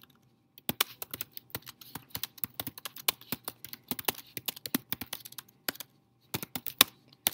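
Typing on a computer keyboard: rapid, uneven runs of key clicks, with a short pause about six seconds in.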